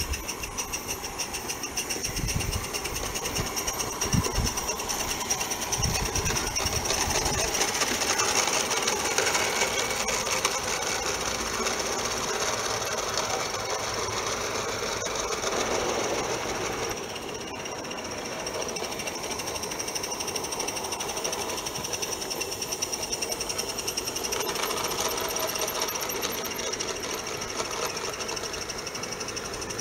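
Accucraft live steam garden-railway tram engine running with a rapid, steady beat of exhaust and wheel clicks. A few low thumps in the first several seconds.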